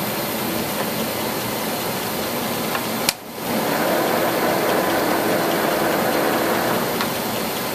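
Warner & Swasey No. 4A turret lathe running, its headstock gearing giving a steady mechanical running noise. About three seconds in there is a sharp click and a brief drop, then it runs on louder with a steady hum, as the spindle speed is changed.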